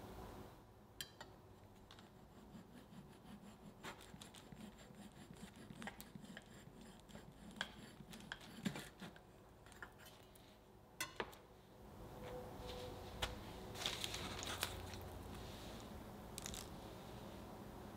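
Knife cutting horizontally through a baked red velvet cake, trimming the domed top level along metal cake-levelling guides: a faint rasping of the blade through the crumb with scattered light clicks. The rasping grows denser and a little louder about two-thirds of the way in.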